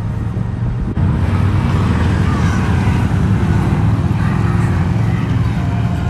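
Road traffic: a loud, steady vehicle rumble that jumps up about a second in and holds, with a faint gliding whine above it.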